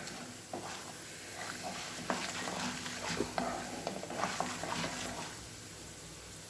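Urad dal, cumin and mustard seeds frying with peanuts in hot oil in a pan while being stirred, with scattered small crackles and scrapes that thin out about five seconds in.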